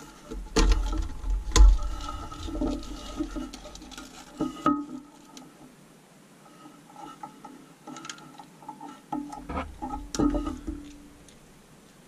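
Clicks, knocks and rubbing of plastic and rubber parts handled inside a porcelain toilet tank as the old flapper and its chain are unhooked and pulled off. The loudest knocks come in the first two seconds, with scattered lighter clicks after.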